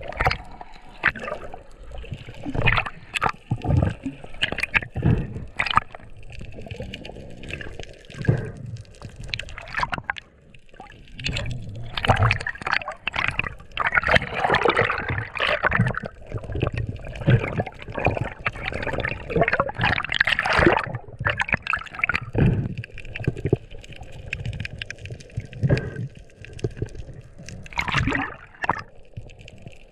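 Water sloshing, gurgling and bubbling around a waterproof action camera during a breath-hold dive, muffled underwater, with louder, irregular splashing from about the middle as the camera breaks the surface.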